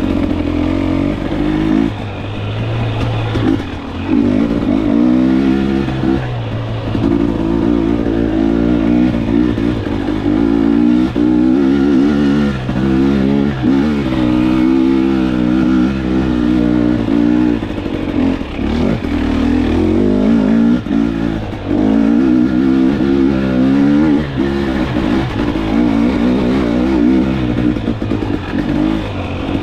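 2022 KTM 250XC TPI single-cylinder two-stroke dirt bike engine, fitted with a TSP performance kit, revving up and down again and again as the throttle is opened and closed while riding.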